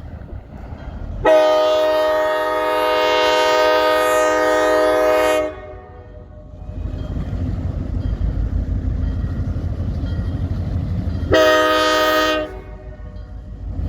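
Freight-train diesel locomotive's multi-chime air horn sounding a long blast of about four seconds. Then the low rumble of the locomotive and train builds up, and a short horn blast sounds near the end.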